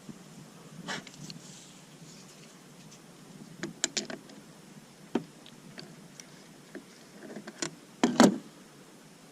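Scattered clicks and knocks of the Stanadyne diesel injection pump and tools being handled, the loudest pair about eight seconds in.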